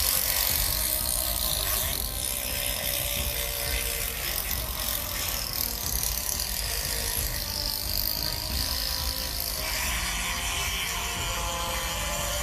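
Chainsaw running steadily with a rattling mechanical edge; its note changes about ten seconds in.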